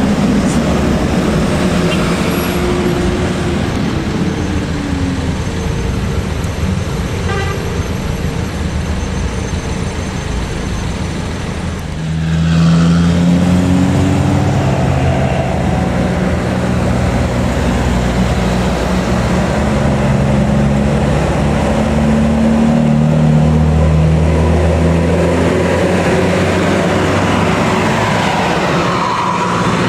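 Bus engine and road noise, then about halfway through a tour bus's telolet horn starts up, a multi-tone horn playing a tune of held notes that step up and down in pitch over the running engine.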